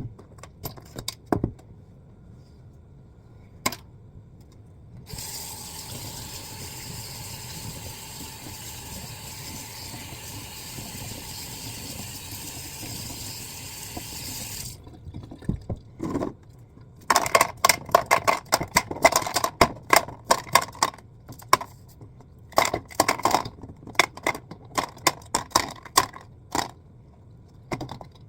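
Water running steadily for about ten seconds, then a long series of quick, sharp clicks and clatters of small hard objects.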